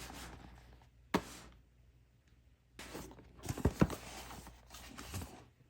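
Packaging being handled: rustling, with a sharp knock about a second in and a cluster of knocks about three and a half to four seconds in.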